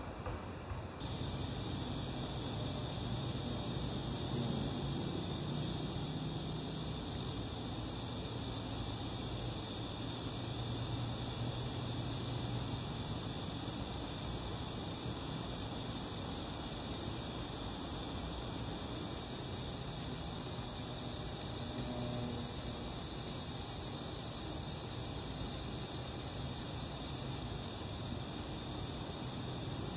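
Steady, high-pitched chorus of insects, cicadas or crickets, drawn out without a break; it starts abruptly about a second in.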